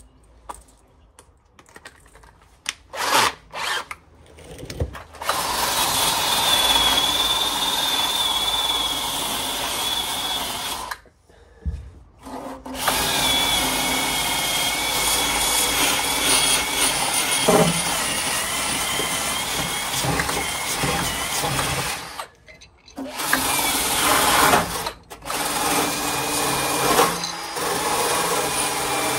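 Cordless drill with a cleaning attachment run against the steel floor pan of a Rover SD1, cleaning it up ready for welding. A few short bursts at first, then long runs of several seconds with a wavering high whine over the scraping, stopping twice for about a second.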